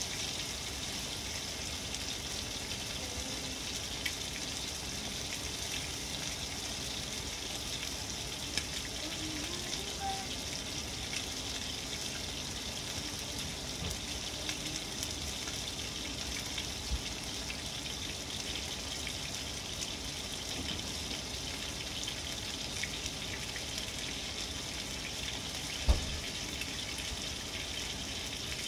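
Marinated chicken frying in a pan with a steady sizzle. A single sharp knock sounds near the end, and a few faint ticks come and go.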